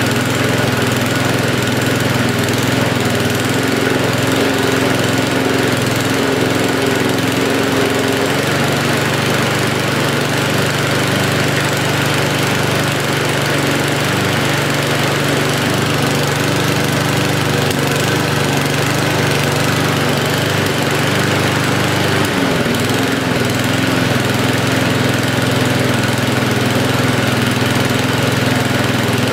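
Mountfield SV150 petrol lawnmower engine running at a steady speed, its note shifting slightly about 8 seconds in and again about 22 seconds in. It holds its speed without surging after a carburettor service.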